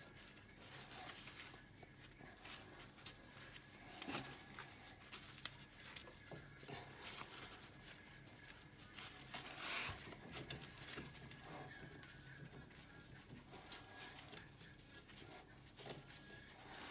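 Faint metal clicks, light knocks and scrapes, with glove rustling, as a bolt is worked through an ATV swingarm pivot; a louder scrape or rustle comes about ten seconds in.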